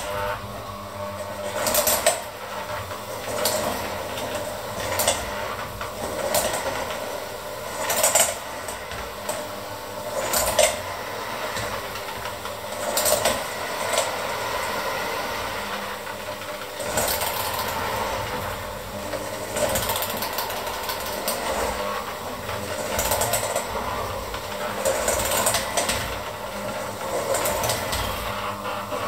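Handheld electric mixer running steadily, its beaters churning a thick, lumpy mixture in a stainless steel bowl, with irregular clacks every second or few as the beaters knock the bowl.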